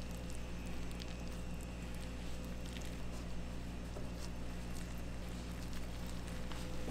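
Steady low machine hum with faint, scattered light clicks.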